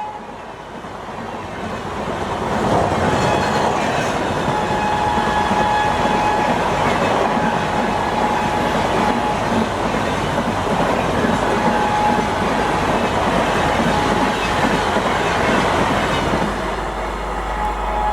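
Passenger coaches of an express train running past at high speed: a steady loud rush of wheels clattering over the rails, with a faint thin squeal coming and going in the middle.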